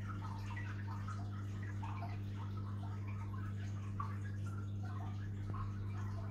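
Aquarium water trickling and bubbling over a steady low hum, the sound of the tank's water circulation equipment running.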